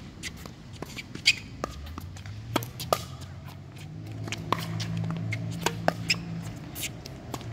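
Tennis rally on a hard court: sharp pops of the ball off racket strings and bounces on the court, the loudest about a second in. A low hum swells in the middle and fades before the end.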